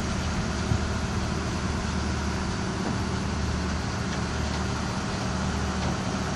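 Telescopic mobile crane's diesel engine running with a steady low hum while the crane is working a lifted pallet, over an even background hiss.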